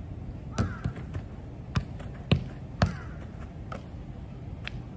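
Sharp knocks, about eight in five seconds at uneven spacing, over a steady low background noise.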